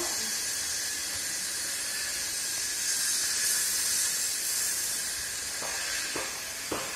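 Steady hiss of rushing water from a waterfall, swelling slightly about three seconds in.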